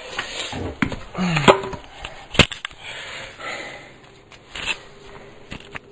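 Knocks and rubbing from handling: the camera being set down on a wooden floor and a freshly cut length of skirting board being laid against the wall to test its mitre fit. There are several sharp knocks, the loudest about two and a half seconds in.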